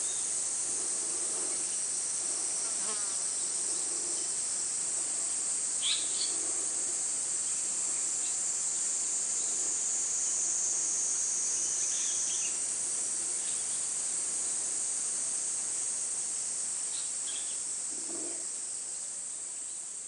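Steady high-pitched chorus of insects buzzing, with a few faint short bird calls about six, twelve and seventeen seconds in; the chorus fades near the end.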